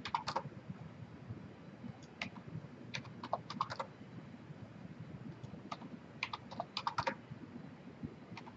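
Computer keyboard keys and mouse buttons clicking in short bursts, as values are typed and faces selected in CAD software, with a few single clicks and quick clusters of keystrokes.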